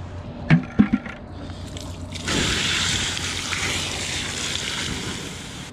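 A sudden rush of water, like pouring or sloshing, starting about two seconds in and slowly tapering off.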